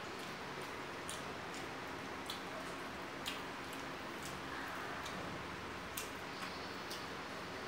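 A person chewing food with scattered short, wet mouth clicks over a steady background hiss.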